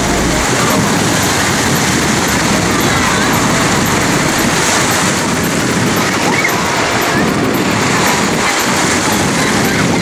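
Sea surf in the shallows: small waves washing in as a steady rushing noise, with faint voices of people in the water.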